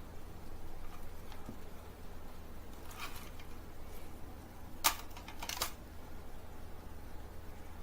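A few short clicks and taps over a steady low hum; the loudest click comes about five seconds in, with another just after.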